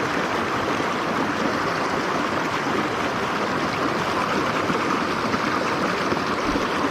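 Mountain stream water running with a steady, even rush.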